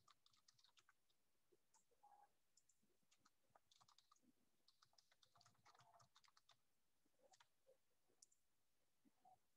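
Very faint clicking of a computer keyboard and mouse, in irregular clusters of taps, while a live stream is being set up.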